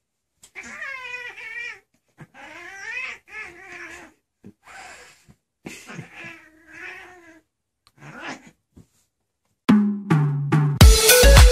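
A domestic cat giving a series of drawn-out, wavering yowls, an angry warning as a bare foot comes close. Music with a beat starts near the end.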